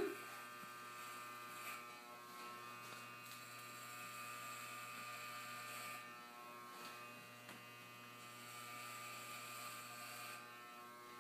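Electric hair clippers running with a steady buzz as they shave a head, a faint hiss swelling twice as the blades pass through hair.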